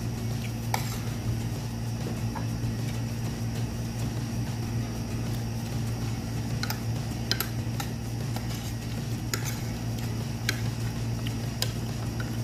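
Chopsticks and a spoon clicking against a bowl while two people eat, with sharp separate clinks every second or two over a steady low hum.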